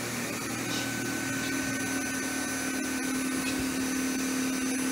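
Vacuum cleaner running steadily, its motor giving a constant hum and a high-pitched whine.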